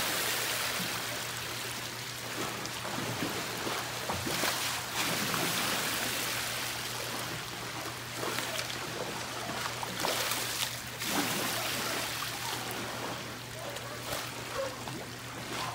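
Swimming pool water sloshing and surging back and forth, washing over the edge onto the concrete deck in repeated rushes: the pool is being rocked by an earthquake.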